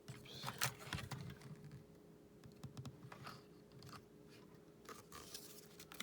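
Faint handling noise from replica flintlock pistols: light clicks and scraping of metal and wood parts being moved, with a couple of sharper ticks about half a second and a second in.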